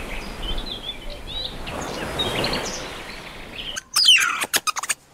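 Outdoor ambience with a steady hiss and faint bird chirps, then about four seconds in a quick run of loud, sharp chirping calls that sweep down in pitch.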